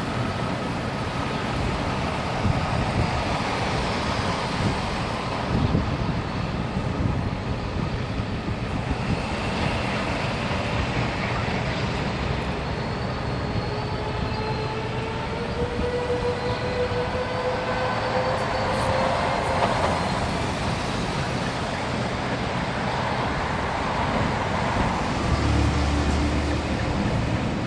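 ALCO diesel locomotive running as it moves slowly on a switching move, with a steady heavy engine sound. A faint tone in it rises slowly in pitch through the middle.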